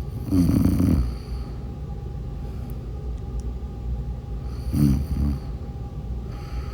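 A sleeping person snoring: two snores about four seconds apart, the second shorter, over a steady low rumble.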